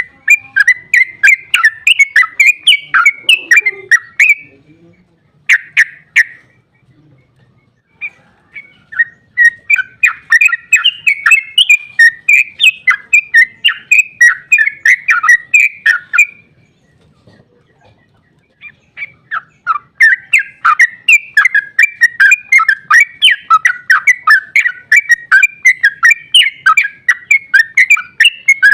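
Yellow-vented bulbul (trucukan) singing a long, rapid run of bubbling repeated notes, the 'ropel' song used as a lure, in three long bouts with short pauses between, the last starting about two-thirds of the way in.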